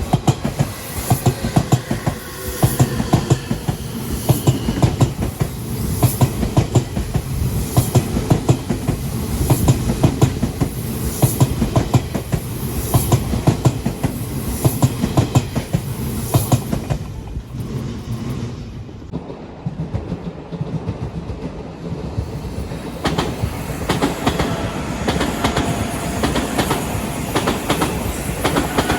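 Odakyu Line electric train running past, its wheels clattering rapidly over the rail joints with a regular heavier beat. The clatter dies down for a few seconds about two-thirds of the way through, then picks up again.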